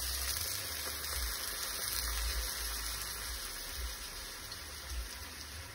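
Hot frying pan of bell peppers and asparagus sizzling with a steady hiss as double cream is poured in, the sizzle slowly dying down as the cream covers the vegetables.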